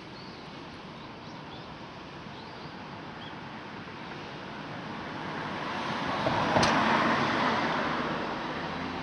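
A car passing on the street, its tyre and engine noise building over several seconds, loudest about two-thirds of the way through, then fading away.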